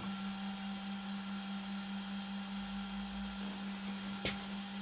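Steady low electrical hum from the powered-up, idle Ooznest WorkBee CNC machine just after homing its axes, with a single sharp click near the end.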